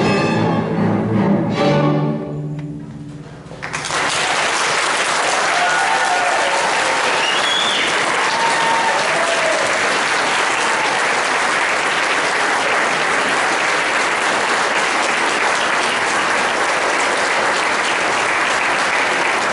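A school string orchestra's closing chord rings out and dies away, and about four seconds in the audience breaks into steady applause that carries on.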